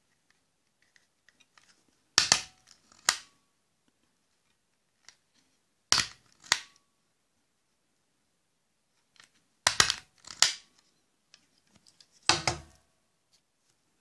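A hand stapler driving staples through a strip of fur fabric four times, each a sharp snap followed a moment later by a second click.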